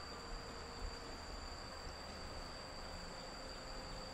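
Crickets trilling steadily, a continuous high-pitched chirring, over faint low background noise.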